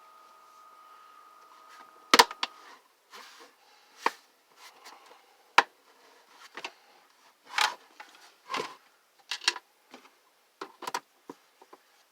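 Sharp clicks and knocks of a Sunbeam space heater's plastic housing being handled and fitted back together, the loudest a snap about two seconds in, followed by scattered lighter taps and clatters. A faint steady tone stops at about the same moment.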